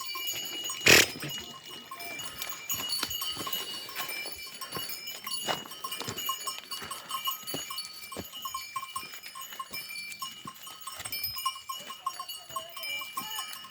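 Many small neck bells on livestock clinking and ringing irregularly as the herd moves off to graze, with a sharp knock about a second in.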